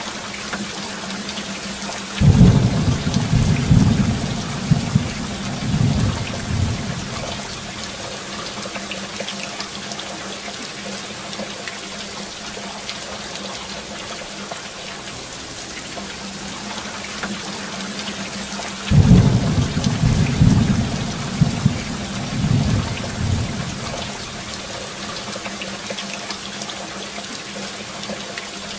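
Steady heavy rain with two long rolls of thunder, one about two seconds in and another about nineteen seconds in, each rumbling for around five seconds with several swells.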